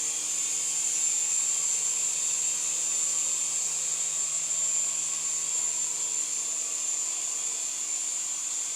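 Syma S107G mini RC helicopter in flight: the small electric motors spinning its rotors give a steady high-pitched whine with a lower hum beneath it.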